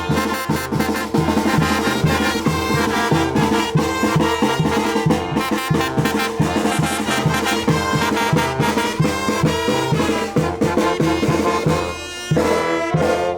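Brass band playing a chilena, brass and drums in a quick, even beat. About twelve seconds in it closes on a held chord that cuts off suddenly.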